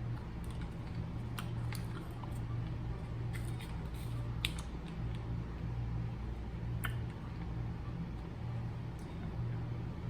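A person chewing a small candy, with a few scattered small clicks, over a steady low hum.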